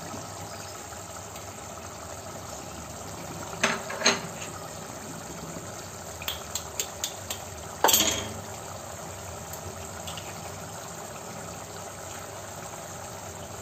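Tomato sauce simmering in a steel pot, a steady bubbling hiss. A few sharp clicks and knocks break in: two about four seconds in, a quick run of small ticks a couple of seconds later, and the loudest about eight seconds in.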